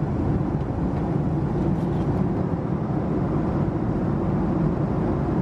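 Steady, low cabin noise of a Boeing 767-300ER in cruise flight.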